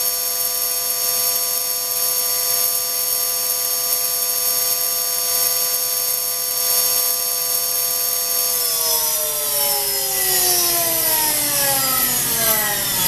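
High-speed electric motor on a test bench, whining steadily at 30,000 rpm with several high tones over a loud hiss. About two-thirds of the way through it starts spinning down, and the whole whine falls in pitch as the speed drops toward 23,000 rpm.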